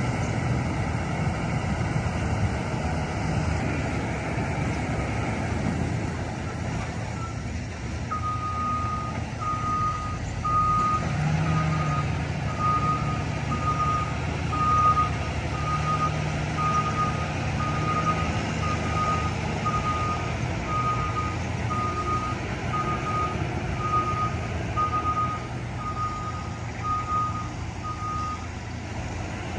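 Construction vehicle's diesel engine running with its reversing alarm beeping a single steady tone about once a second, starting about a quarter of the way in and stopping shortly before the end.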